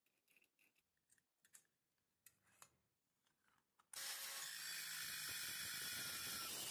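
A few faint clicks, then about four seconds in a steady, faint running sound starts abruptly: a Worx WU427 710 W corded mini circular saw running, held over a steel tube clamped in a vise, low in the mix.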